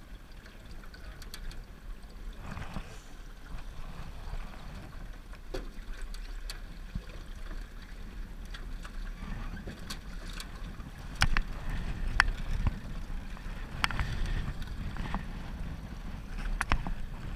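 Steady low rumble of a small aluminium boat riding on the water, with wind on the microphone. A few sharp knocks come in the second half, the loudest about eleven seconds in.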